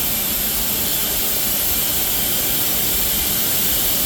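Steady machine noise with a strong high hiss from an IPX rain-test chamber running its IPX3/IPX4 test, its pump and air line going but with no water pressure building, so no rain is produced.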